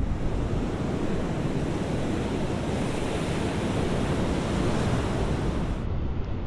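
Steady rushing noise of open-sea waves and wind, with no distinct events.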